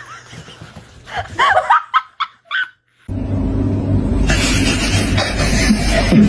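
A person laughing in short bursts, then, after an abrupt cut, a steady noisy background with a low hum.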